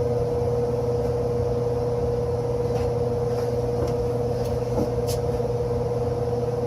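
Steady machine hum with a constant mid-pitched tone over a low drone, and a few faint ticks.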